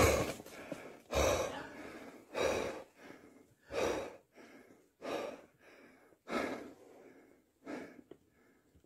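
A man breathing hard and fast close to the microphone, about one loud breath a second, the breaths growing fainter toward the end. A brief thump comes at the very start.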